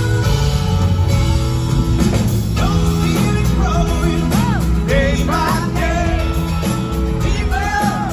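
Live pop-rock band playing, with acoustic and electric guitars, piano and drums, and a male lead vocalist starting to sing about two and a half seconds in.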